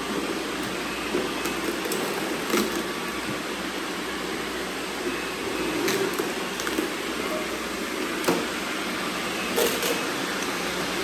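Robot vacuums running with a steady whirring hum, broken by a few short sharp clicks.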